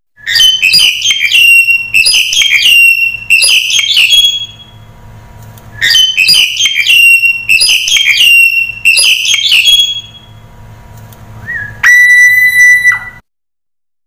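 Black-collared starling singing. Two loud runs of rapid, harsh whistled notes of about four seconds each are followed near the end by one long steady whistle.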